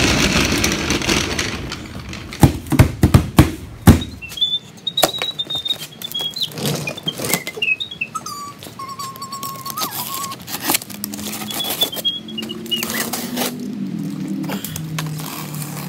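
A large cardboard-boxed bandsaw being slid across a concrete floor, then a run of sharp snaps and knocks as its plastic packing straps are dealt with, followed by cardboard and plastic handling with a few brief high squeaks.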